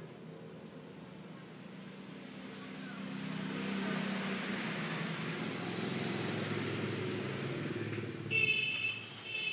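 Motor noise that swells and wavers, with a high beeping tone starting near the end.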